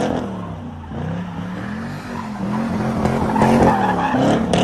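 Pontiac G8 doing donuts with its rear tyres spinning and squealing. The engine revs rise and fall again and again as the car slides round.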